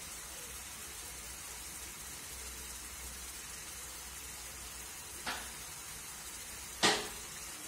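Ground beef frying in a nonstick pan, sizzling with a steady, fairly faint hiss. Two short sharp clicks come through it in the second half, the second one louder.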